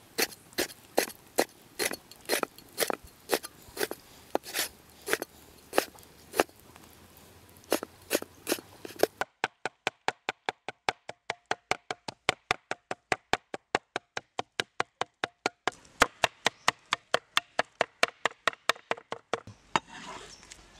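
A heavy cleaver chopping pork on a thick wooden chopping board, mincing it. The strikes come at about two a second at first, then after about nine seconds turn into a quick, even run of about five a second, giving way to a softer, noisier sound near the end.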